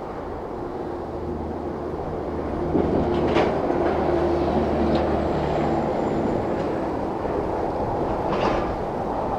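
A heavy vehicle passing along a road below, a steady low engine hum over a continuous rumble. It swells about three seconds in and eases off after about six seconds.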